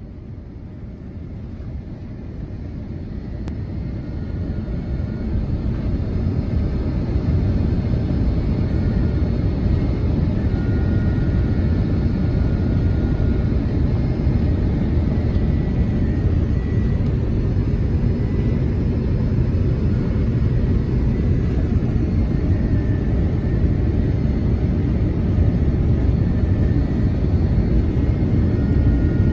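Cabin noise of a Boeing 787-9 airliner on short final approach: a steady low rumble of engines and airflow with a faint high whine, getting louder over the first several seconds and then holding steady.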